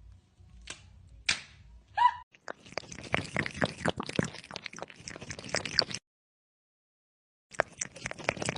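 A series of sharp clicks and slaps. A short squeak comes about two seconds in, then a dense run of rapid clicking and rustling that breaks off abruptly, with a few more clicks near the end.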